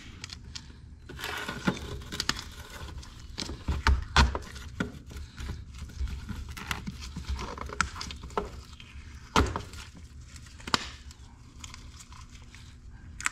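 Hand-work sounds at a steel workbench: scattered clicks, clinks and knocks of metal parts and tools being handled as a hydraulic cylinder part is wrapped in duct tape and set in a vise. A few sharper knocks stand out, the loudest about four seconds in and again about nine seconds in.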